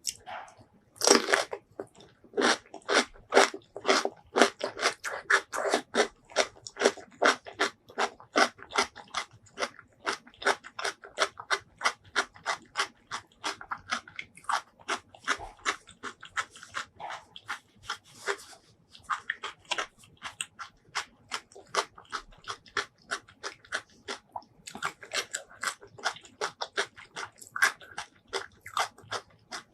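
Close-miked chewing of crunchy food, with crisp crunches at a steady pace of about two a second and a loud bite about a second in.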